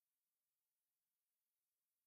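Near silence: the soundtrack is silent.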